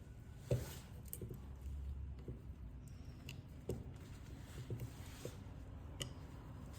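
Scattered small clicks and taps of hand tools working on an iPhone XR during a battery replacement, the sharpest about half a second in.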